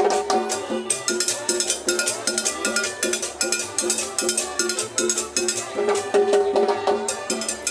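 Live street band playing dance music: accordion over drums and hand percussion, with a fast, even beat of sharp hits about four a second.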